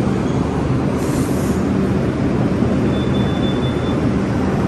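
New York City Subway 1 train, R62A cars, rumbling steadily as it pulls into the underground station alongside the platform. A short hiss of air comes about a second in, and a brief high squeal a little before the end.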